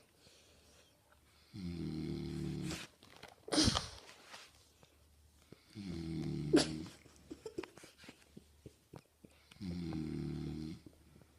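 A sleeping man snoring: three snores about four seconds apart, each about a second long. A short loud sound sweeping down in pitch follows the first one.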